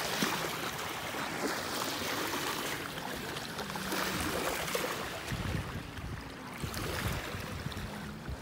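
Small waves lapping and washing over a pebbly shoreline: a steady, swelling rush of water, with a low rumble for a second or so past the middle.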